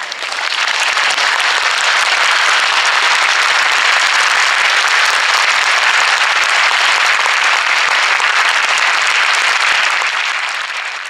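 Audience applauding, swelling up within the first second and fading away near the end.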